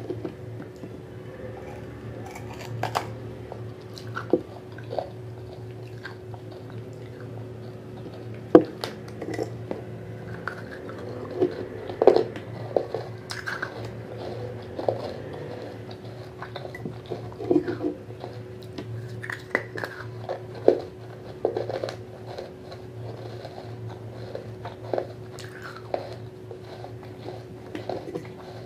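A small terracotta clay pot, wetted, being bitten and chewed. Sharp, irregular crunches and gritty chewing of the baked clay, spaced a second or more apart.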